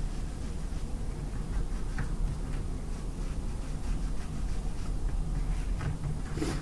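Foam dauber tip of a Distress Paint bottle rubbed and dabbed over a paper tag, with a few light taps, over a steady low hum.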